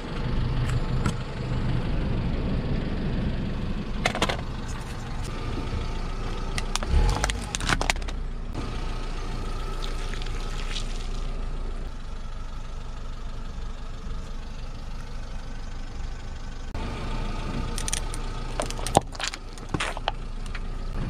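Car running slowly with a steady low engine hum as its tyre rolls over a Sharp EL-2136 plastic desktop calculator, the casing cracking sharply a few times. Near the end a cluster of cracks and pops comes as a tyre crushes a carton of milky drink.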